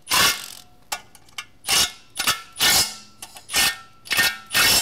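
Cordless impact wrench running down the 18 mm flex plate bolts onto the crankshaft of a Cummins 12-valve, in about seven short bursts with brief pauses between.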